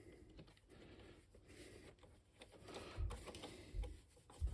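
Faint clicks and light taps of a screwdriver and small parts being handled during hands-on assembly work, with a few soft low knocks toward the end.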